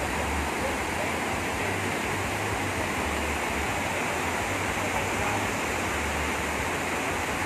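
Rain-swollen stream water rushing steadily in a strong, fast flow.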